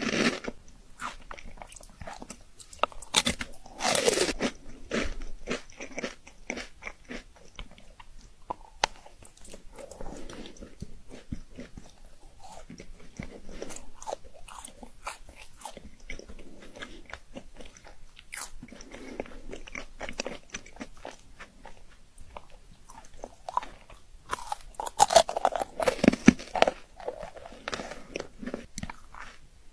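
Someone biting into chocolate and chewing it, close up: loud crunching bites near the start and about four seconds in, softer chewing clicks through the middle, then another run of loud crunching bites around twenty-five seconds in.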